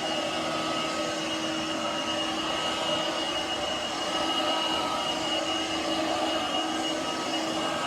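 Shark Navigator Freestyle SV1106 cordless stick vacuum running steadily in carpet mode: a constant motor whine over a rushing hiss.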